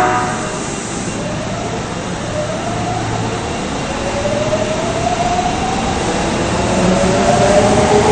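Osaka Municipal Subway 22 series train pulling out of a station, its traction motors giving a whine of several rising tones over a low rumble as it picks up speed.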